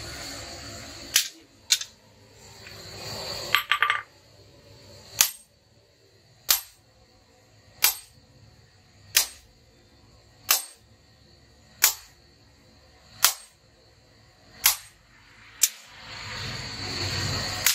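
Hammer blows on a red-hot billhook blank resting on a steel anvil block. After a couple of sharp strikes and a brief ringing clatter, single blows fall at a steady beat, about one every 1.3 seconds. A rushing noise fills the start and builds again near the end.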